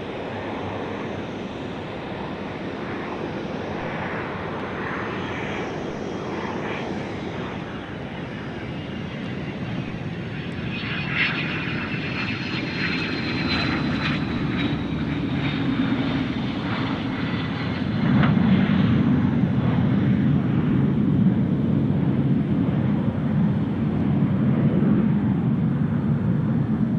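Cessna 550 Citation II business jet's twin turbofans on approach and landing roll: steady jet noise with a high turbine whine that slowly falls, growing louder and deeper about two-thirds of the way through.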